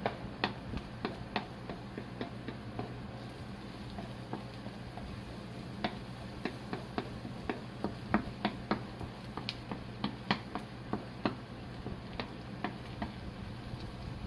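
Wooden spatula clicking and scraping against a nonstick frying pan as diced vegetables are stirred and pushed around: irregular sharp taps, about two a second, over a steady low hum.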